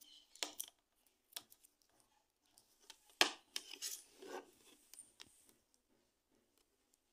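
Handling sounds from an induction cooktop and its power cord: scattered clicks and knocks of the plastic plug and hard body being moved, with some rustling and scraping. The loudest knock comes about three seconds in, followed by a cluster of smaller ones.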